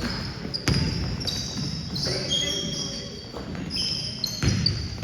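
Basketball bouncing on a gym floor during play, with two sharp thuds, one near the start and one near the end. Short high squeaks, typical of sneakers on the court, are scattered throughout, all echoing in the large hall.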